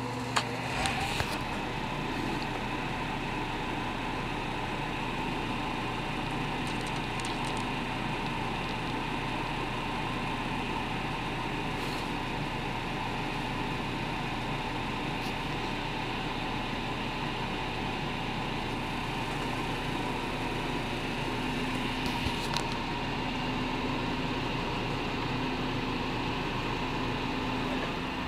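Harbor Freight mini wood lathe running at a steady speed: an even motor hum and whine with a wooden blank spinning free between centres, with no cutting. A few light clicks come about a second in and again about three quarters of the way through.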